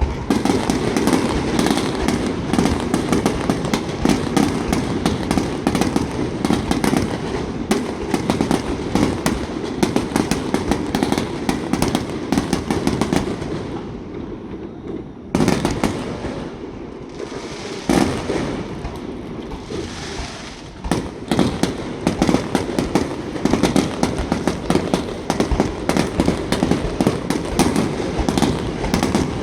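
Starmine fireworks barrage: a rapid, continuous volley of shells bursting and crackling. It thins out about halfway through, then a sharp bang starts a second dense volley.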